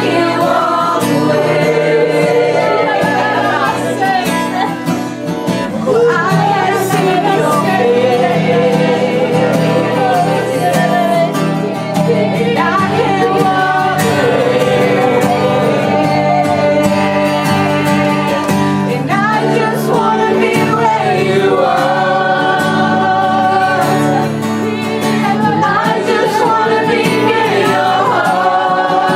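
Live worship music: a group of voices singing a slow song over sustained instrumental chords.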